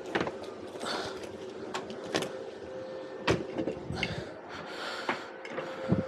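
Scattered clanks and knocks of metal being handled at a safe and welding setup, over a steady faint hum, with a short hiss about four seconds in.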